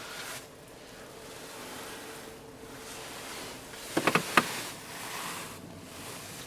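A quick cluster of four or five plastic clicks about four seconds in, from the Toyota Auris's steering-column light, indicator and wiper stalks being worked through their positions, over a faint steady hiss in the car's cabin.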